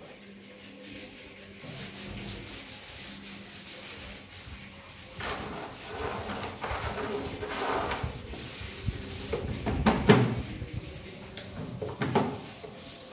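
Palms rubbing carrom powder across a wooden carrom board's playing surface: dry swishing strokes, quieter at first and louder from about five seconds in, with the loudest stroke near ten seconds.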